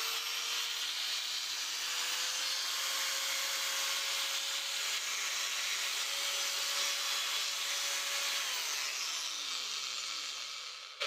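Varyag angle grinder running with no load after its gearbox repair: a steady whine that settles up to speed in the first few seconds, then falls away as the tool is switched off and spins down to a stop near the end. It runs normally, the gearbox now turning freely.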